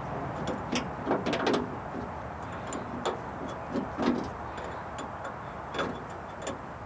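Scattered light metallic clicks and knocks of hand-tool work with an Allen wrench on a pickup's door handle, a cluster of quick ones about a second in and single ones later, over a steady outdoor background noise.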